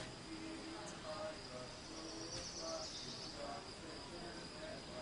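Grasshoppers or crickets chirring: a steady high buzz that thickens into a louder rasp about two seconds in, with faint short low tones coming and going underneath.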